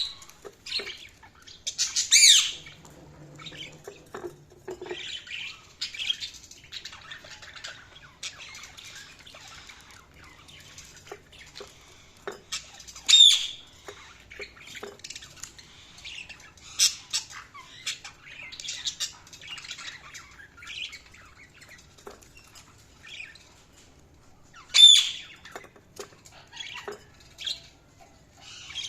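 Budgerigars chattering and chirping, with three louder squawking calls spread through.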